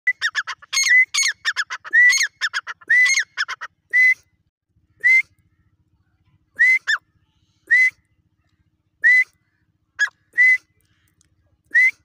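Grey francolin calling: a quick run of short, ringing notes for the first few seconds, then single short notes, each rising in pitch, about once a second.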